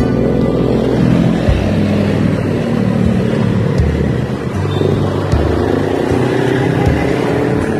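Street traffic heard from a moving scooter: motorbike engines running just ahead, over a steady low rumble.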